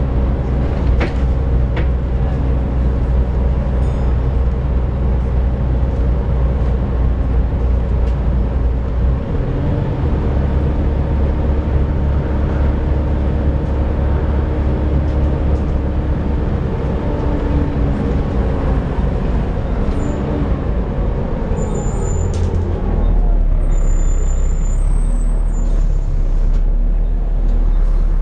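Volvo B7TL double-decker bus's diesel engine running steadily. Its low drone shifts in pitch about nine seconds in and again near the end.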